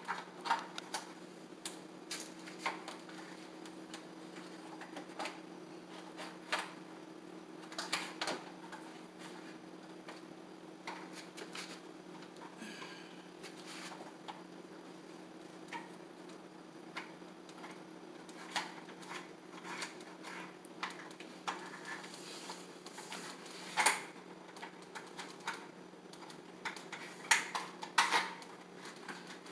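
Irregular light clicks and knocks as a horizontal slat blind's headrail and slats are handled and pushed into the mounting brackets, the sharpest about two-thirds of the way through and near the end, over a steady low hum.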